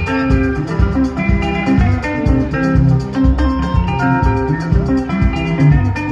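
Live sungura band playing an instrumental passage: picked electric guitar lines over bass and a drum kit keeping a steady beat.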